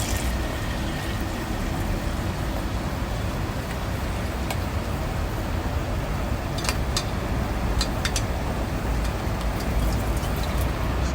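Portable mini washing machine running, a steady churning rumble, with a few light clicks partway through.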